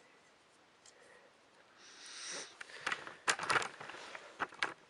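A short sniff, then a quick run of small clicks and knocks from plastic K'Nex toy pieces being handled.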